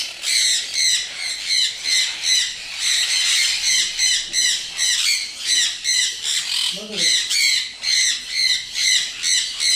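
A group of pet parrots calling at once, a dense run of shrill repeated squawks several times a second.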